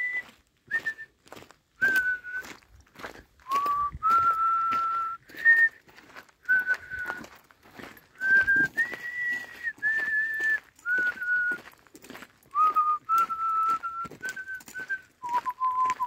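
A person whistling a tune in clear, held notes that step up and down, over footsteps crunching on a gravel track.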